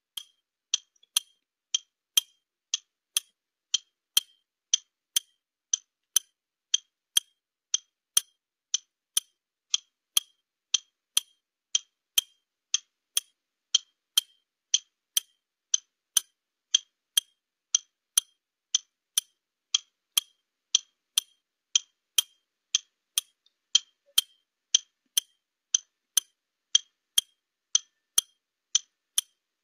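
Clock-ticking countdown sound effect timing the 30-second answer period: steady sharp ticks, a little under two a second.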